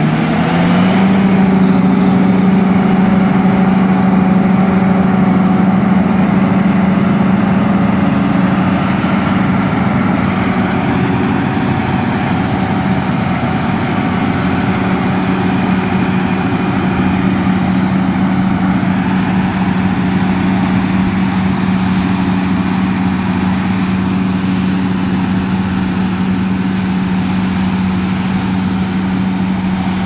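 John Deere 7750i self-propelled forage harvester chopping maize, running with a loud, steady drone together with the tractor hauling the forage wagon beside it. The sound eases slowly as the machines work away.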